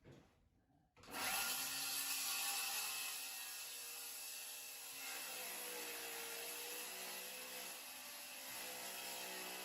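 A power saw starts suddenly about a second in and runs steadily, cutting solid-surface countertop material; its motor pitch dips slightly partway through as it takes load.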